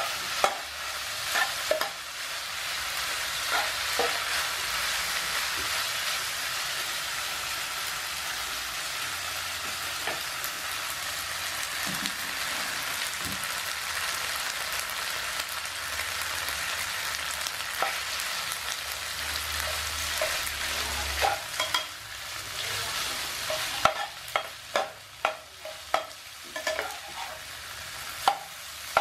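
Yakisoba noodles and sliced sausage sizzling in a nonstick frying pan while being stir-fried, with scattered clicks and knocks of a utensil against the pan that come more often in the last few seconds.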